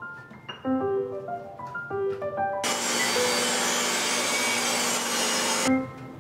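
Light, plinking background music with marimba-like notes. About two and a half seconds in, a portable table saw rips a 2x4 lengthwise for about three seconds, its loud hiss starting and cutting off abruptly.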